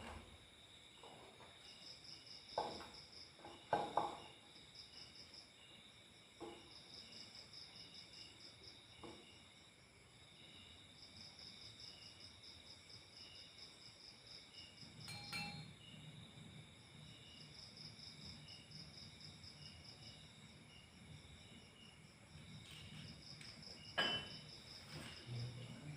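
Insects chirping steadily and faintly in the background: one gives long runs of rapid high trilling pulses, and another a slower repeated chirp. A few sharp knocks and clicks of objects being handled come about two and a half seconds in, at four seconds, midway, and near the end.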